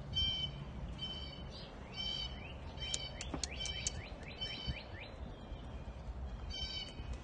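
Small birds chirping: short, harsh repeated chirps about two a second, with a quick run of falling notes around the middle. A steady low rumble of outdoor background noise runs underneath.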